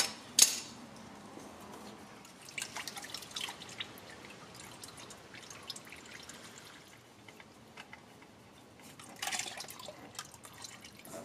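Used engine oil dripping and trickling from a loosened oil filter, with two sharp clicks right at the start and a brief burst of handling noise about nine seconds in.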